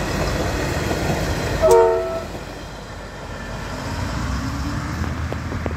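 Two-car V/Line Sprinter diesel railcar passing and running away along the track, with a short multi-tone horn toot about two seconds in. Its diesel engine note then rises steadily as the driver opens the throttle up the grade.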